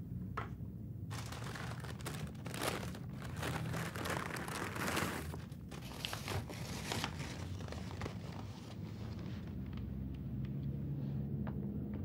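Crinkly food wrapper being crumpled and torn open by hand, a dense crackling that runs for the first half or so and then thins to a few faint clicks, over a steady low room hum.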